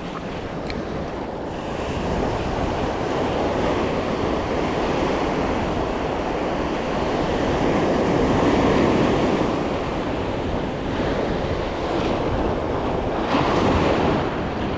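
Ocean surf washing onto the beach, with wind on the microphone; the wash swells to its loudest about eight or nine seconds in and again near the end.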